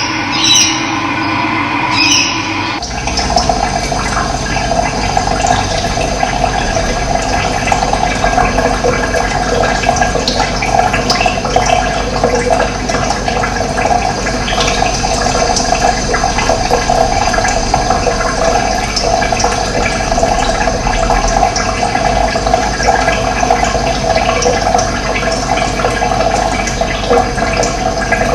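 Steady rushing of running water, setting in about three seconds in after a brief different passage with a few sharp high sounds.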